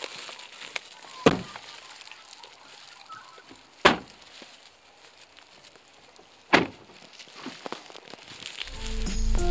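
Three sharp thuds about two and a half seconds apart over a faint background, then music with a steady beat coming in near the end.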